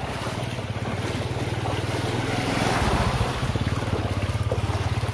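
Vehicle engine running steadily with a fast even pulse as it moves through floodwater, over a continuous rush of water and wind noise on the microphone.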